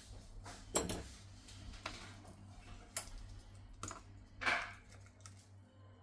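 Scattered small clicks and taps of tools and parts being handled in a phone repair, with one sharper click about a second in and a brief scraping rustle a little past the middle.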